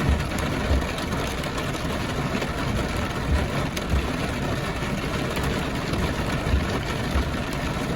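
Heavy rain falling steadily, a dense even hiss, with irregular low rumbles underneath.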